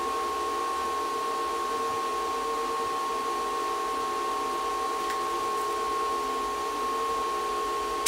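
AntMiner S9 ASIC miners' cooling fans running, a steady whir with a constant high whine. A single sharp click near the end.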